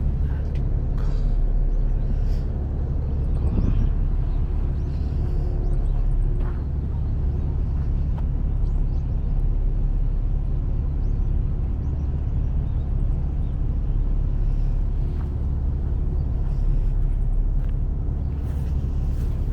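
Car driving at a steady speed: a constant low engine and road rumble with a faint steady engine hum.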